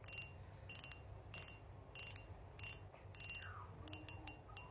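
Shimano Stella FK 1000 spinning reel being worked by hand: a series of short, light mechanical clicks, about one every two-thirds of a second, coming closer together near the end.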